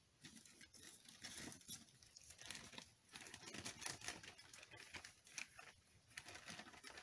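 Faint, irregular crinkling and rustling with scattered light ticks, the sound of something being handled close to the microphone.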